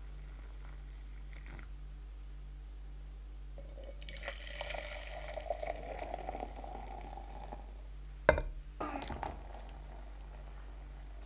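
Liquid being poured into a container for about four seconds, the pour giving a steady pitched sound over a hiss. It is followed about eight seconds in by one sharp knock and a short clatter.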